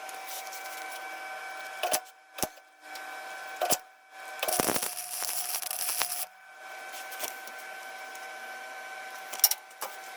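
A few sharp knocks and clicks of tools and parts being handled, with a rough scraping noise lasting about two seconds near the middle, over a steady faint hum.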